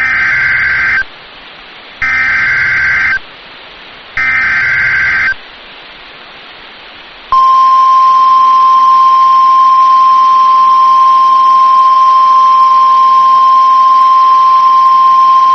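Emergency Alert System SAME header: three one-second bursts of warbling digital data tones about a second apart. About seven seconds in, a loud, steady single-pitch alarm tone starts and holds. It is the 1050 Hz warning tone used by NOAA Weather Radio.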